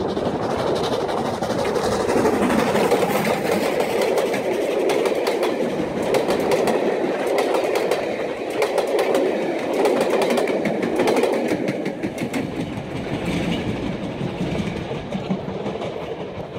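Steam-hauled train of Royal Mail vans passing close at speed, the wheels clattering over the rail joints in quick clicks; the sound eases slightly near the end.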